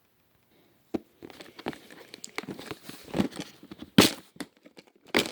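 Rustling and crinkling of small packets of spare electronic parts being handled and sorted through, with many small clicks and two louder handling noises, one about four seconds in and one near the end.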